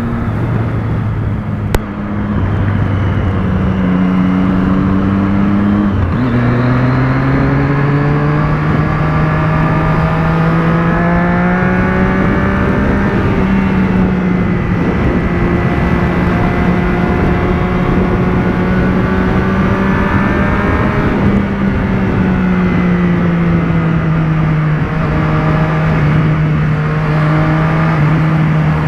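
Motorcycle engine pulling through the gears at road speed, its pitch dropping at upshifts about 2 and 6 seconds in, then climbing and holding steady at cruise, easing off slightly near the end. A steady rush of wind and road noise runs underneath.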